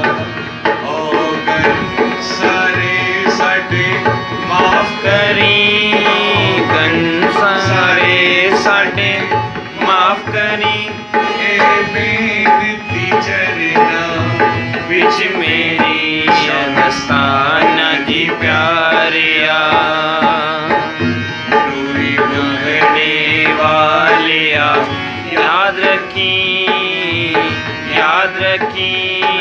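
Harmonium and hand drum playing a devotional shabad: held, wavering harmonium notes over a steady drum rhythm.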